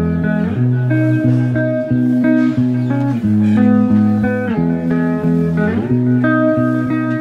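Instrumental background music: a plucked guitar melody moving note to note over held low bass notes.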